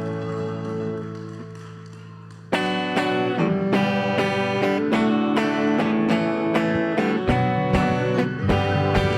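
Worship-band music: a held chord dies away, then about two and a half seconds in a guitar starts strumming chords in a brisk steady rhythm, and low drum thumps join near the end.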